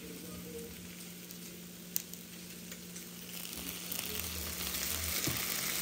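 Chicken breast sizzling on the hot plates of an electric contact grill as Italian dressing is poured over it, with a single light click about two seconds in. The sizzle grows louder from about three and a half seconds on.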